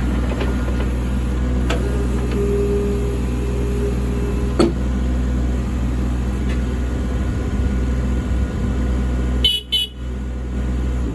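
Kubota U27-4 mini excavator's diesel engine running steadily, with a few sharp clicks and a short steady whine about two seconds in. Near the end comes a brief high beep.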